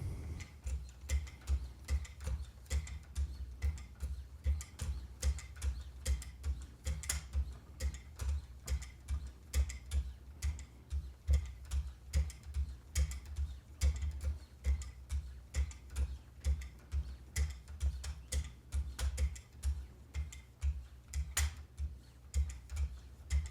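Wicked Edge guided sharpener's 3-micron hones stroking along a CPM-M4 steel knife edge, alternating sides in a steady rhythm of about two strokes a second. These are the fine polishing passes that bring up a mirror edge.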